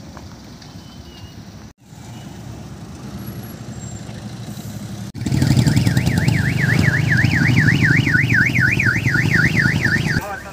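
Ambulance siren sounding a fast warble, its pitch swinging up and down about three times a second, starting about five seconds in and stopping just before the end, over a steady engine rumble. Before it, only low steady traffic and engine noise.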